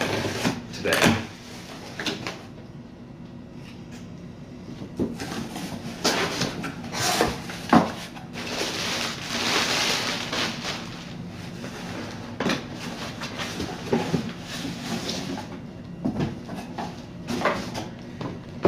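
Cardboard shipping box and packaging being handled during an unboxing: scattered knocks and bumps, with a few seconds of rustling and sliding near the middle.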